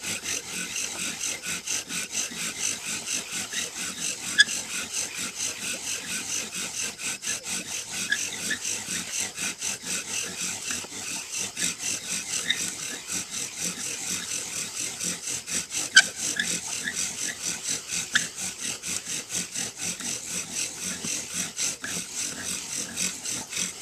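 Several bow drills worked at once: wooden spindles spun by sawing bows, grinding into wooden fireboards with a steady rhythmic back-and-forth rasping. Occasional short squeaks and a few sharp clicks sound through it.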